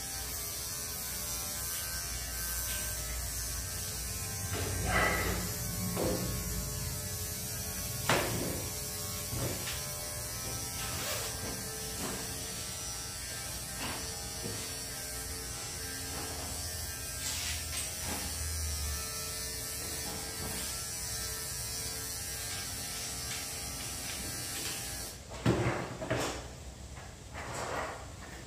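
Small cordless pet trimmer running steadily with an even motor hum while trimming a dog's coat, with a few short clicks along the way. It switches off about three seconds before the end, followed by a handful of knocks and rustles.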